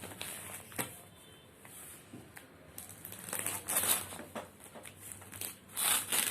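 Packaging crinkling and rustling as a parcel is handled and opened by hand. The crackling grows busier and louder about halfway through.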